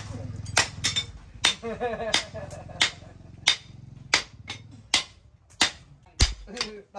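Hand hammer striking a red-hot axe head on a small steel post anvil: about ten sharp metallic blows at a steady pace, roughly one every two-thirds of a second, as the hot steel is forged into shape.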